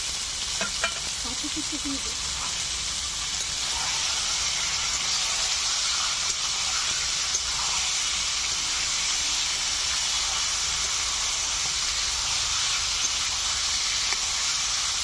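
Marinated chicken sizzling steadily as it fries in hot mustard oil in a wok, with a metal spatula stirring it and now and then clicking on the pan. The sizzle grows a little louder about four seconds in.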